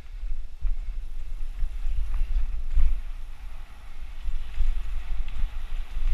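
Wind buffeting an action camera's microphone as a mountain bike speeds down a dirt trail, with the hiss of tyres rolling over dirt and a few short knocks as the bike hits bumps.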